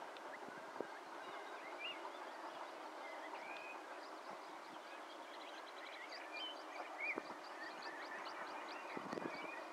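Birdsong: small birds chirping and trilling in short, scattered phrases over a faint, steady background hiss.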